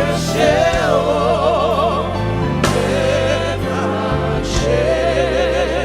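Live gospel worship song: voices sing together in a choir with wavering vibrato over a band's sustained bass notes.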